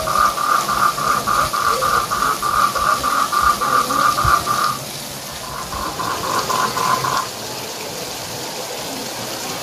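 Frog calling in a steady rhythm of short, high notes, about four a second, until a little before the halfway point. A shorter, slightly lower run of the same notes follows between about five and a half and seven seconds in. A steady hiss lies underneath.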